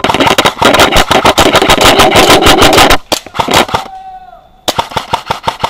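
Airsoft rifle firing in rapid full-auto: a long burst of about three seconds, a few single shots, then a second burst of about a second near the end.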